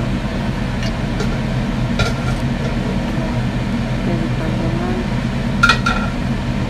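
Metal spatula scraping and clinking against a wok as stir-fried vegetables are scooped out onto a plate, with two sharp ringing clinks in quick succession near the end. A steady low hum runs underneath.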